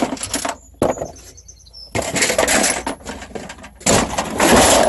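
Scrap items being loaded by hand: a sharp knock, then two longer stretches of rattling and scraping clatter, the second one loudest.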